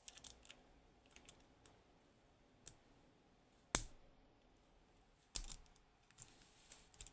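Light clicks and small taps of metal lock parts and tools handled while an Assa Desmo lock is being taken apart, with two sharper knocks about four and five and a half seconds in.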